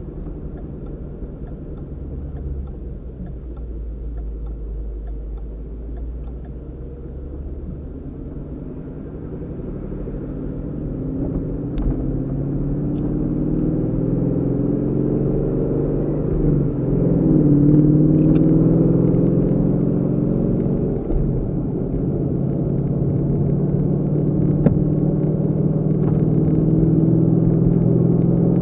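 Car engine and road rumble while driving. The engine grows louder from about a third of the way in, its pitch rising and shifting like a car pulling away and accelerating, then settling into a steady drone.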